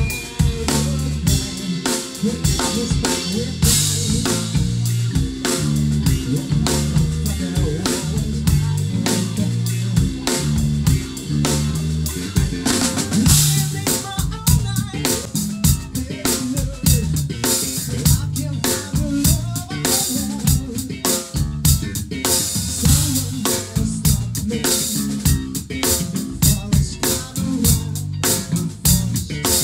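Drum kit playing a steady rock groove on snare and bass drum, over low pitched notes that change about every half second, as a rock band rehearses.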